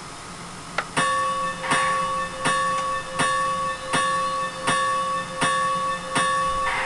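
Model steam locomotive sound from a Soundtraxx Micro TSU-750 DCC decoder, played through a speaker: after a click about a second in, slow even exhaust chuffs start, about one every three-quarters of a second, over a steady high whine.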